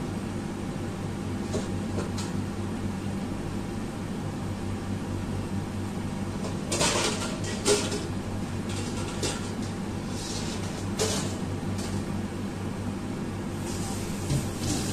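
Water at a rolling boil bubbling in a wide pan with fried eggs, over a steady low hum. Bursts of crackling clicks come about seven seconds in, again around ten to eleven seconds, and near the end.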